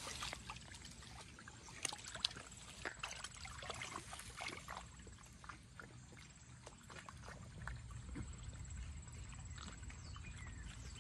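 Small dog (a schipperke) wading through shallow creek water: light, irregular splashing and sloshing, with a couple of sharp taps about two seconds in.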